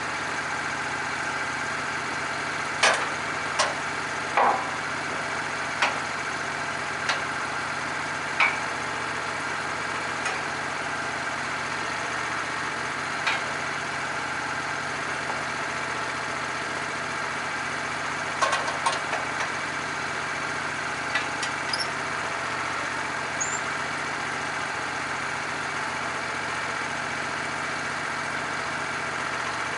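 Sawmill engine running steadily at an even speed, with scattered sharp knocks and clatters, a cluster in the first third and another a little past the middle.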